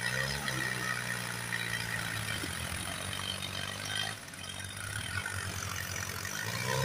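New Holland farm tractors' diesel engines running steadily at a low speed, the engine note rising slightly near the end.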